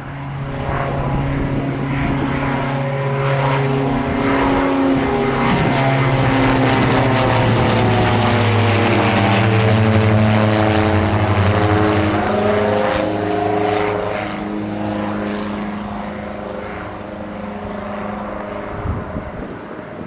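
A Diamond DA42 Twin Star's two propeller engines at climb power as it flies overhead just after takeoff. The sound grows louder to a peak about halfway through, then fades as it flies away, and its pitch drops as it passes.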